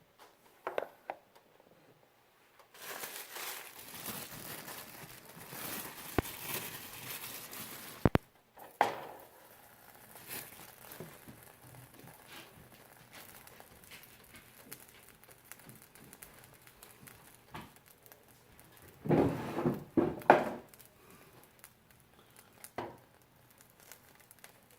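Crinkling of packaging being handled, in two loud spells that stop abruptly, with scattered clicks and knocks between them.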